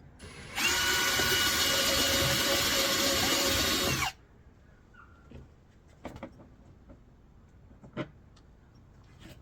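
Power drill running for about three and a half seconds, whining up to speed just after the start and stopping abruptly. A few light clicks and knocks follow.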